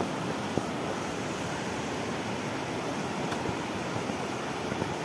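Shallow river rushing over rapids: a steady wash of flowing water, with one faint tap about half a second in.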